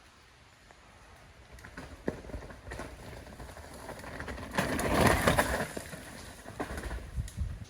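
Rain falling with scattered knocks, and a swell of rushing noise that builds to its loudest about five seconds in and then eases off.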